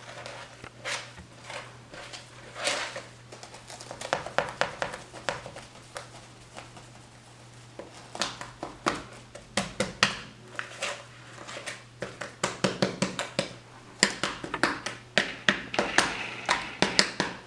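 A whisk scraping and clicking against a mixing bowl as dry ingredients are stirred together, in irregular strokes that come quicker and denser near the end.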